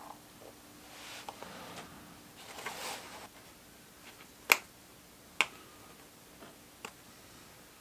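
Hand-sewing through a shoe's leather and fake-leather upper: soft rustles of thread being drawn through, then two sharp clicks a little under a second apart near the middle and a fainter click later, as the needle is forced through the tough material.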